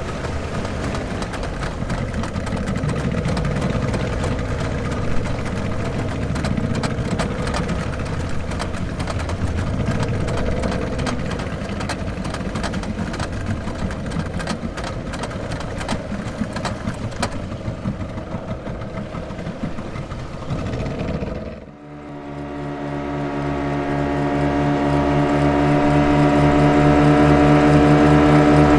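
Motorboat engine running with a rough, noisy drone. About three quarters of the way through it drops away briefly, and a steadier, evenly pitched engine hum fades in and grows louder.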